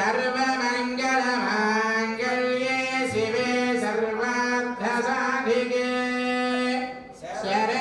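A voice singing a slow devotional melody in long held notes that slide from one pitch to the next, with a short break between phrases near the end.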